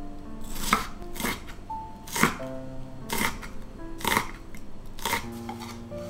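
Chef's knife cutting through vegetables onto a wooden cutting board: six separate strokes, roughly one a second. Soft background music with held notes plays throughout.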